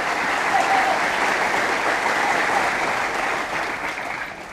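Studio audience applauding, dying away near the end.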